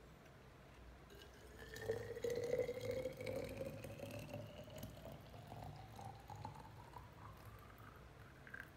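Liquid being poured into a container, its tone rising steadily in pitch as the vessel fills. It starts about two seconds in, is loudest at first, and stops just before the end.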